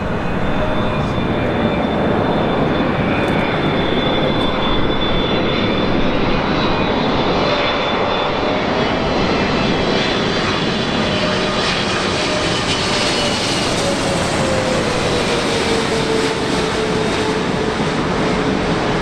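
Boeing 777-300ER's GE90 jet engines running: a loud, steady rush of noise with a thin high whine and a lower hum that slides slightly down in pitch late on.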